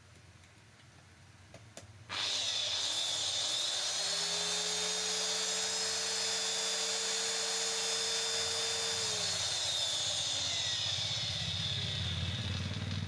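Horse Power HP1351R 125 mm marble cutter's motor, fitted with a new armature, switched on about two seconds in: a high whine that climbs quickly to full speed and holds steady. From about nine seconds it falls in pitch as the motor coasts down after being switched off.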